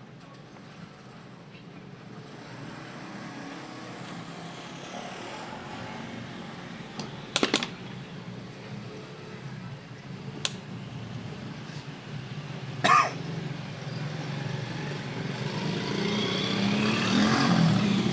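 Angle grinder's electric motor running steadily after cleaning, growing gradually louder toward the end, with a few sharp clicks or knocks in between.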